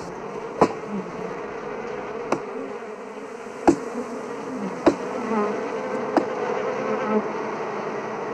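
A swarm of wild honeybees buzzing steadily around their nest, while an axe chops into the tree trunk to open the hive: about five sharp blows, irregularly spaced a second or so apart.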